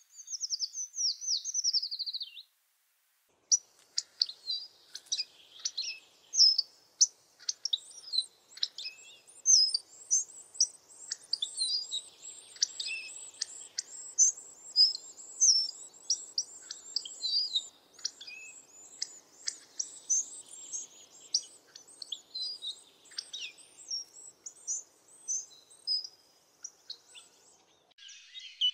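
Songbirds singing. It opens with a quick run of falling chirps, then after a short gap many birds sing over one another in a dense chorus of high chirps and phrases.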